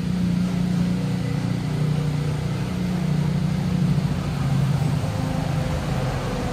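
Low, steady motor hum with a drifting pitch that sags a little about four seconds in.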